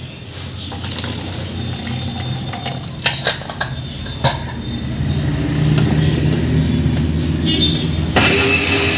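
Water poured from a plastic bottle into a stainless steel mixer-grinder jar, with clicks and knocks of the bottle and jar being handled. About eight seconds in, the mixer grinder's motor starts and runs loudly, blending cucumber, ginger and mint with the water into juice.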